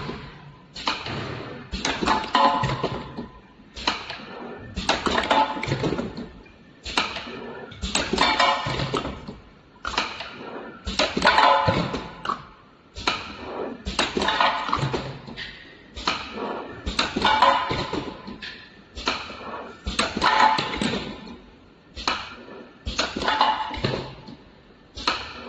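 Cosmetic cream filling and capping machine running through its cycles: a burst of mechanical noise about once a second as the turntable indexes and the stations work, falling back quiet between bursts.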